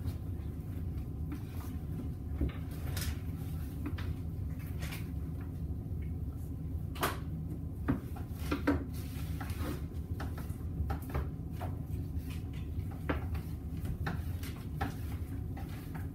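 A boning knife working through a bone-in ham, hitting bone: irregular clicks and knocks over a steady low hum.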